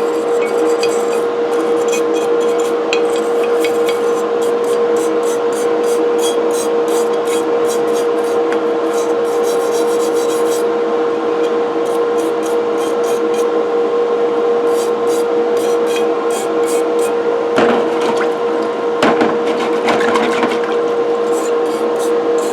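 A brush scrubbing the metal parts of an old cast iron coffee grinder in ammonia cleaner: a run of quick scratchy strokes, pausing briefly about halfway, with two louder scrapes near the end. A steady hum runs underneath.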